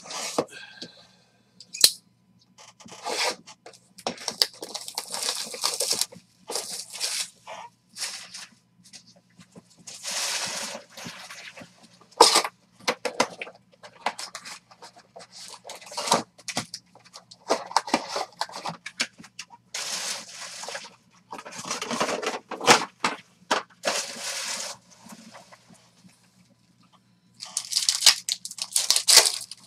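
Crinkling and tearing as trading-card boxes are unwrapped and opened and foil card packs are ripped open: a run of short crackly rustles with brief pauses, and a longer, louder stretch of tearing near the end.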